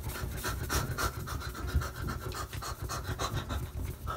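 Alcohol-soaked baby wipe rubbed briskly back and forth over a Retina MacBook Pro screen, a rhythmic swishing of about three strokes a second, as the last of the stained anti-glare coating is wiped off.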